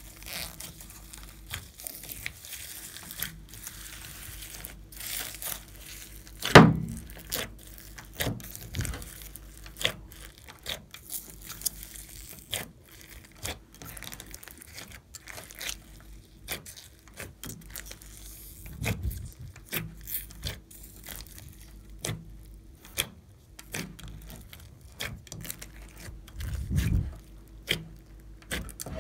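Glossy slime being kneaded and squished by hand, giving a run of irregular sticky clicks and pops. A sharper pop stands out about six and a half seconds in, and there are duller squelches near the middle and near the end.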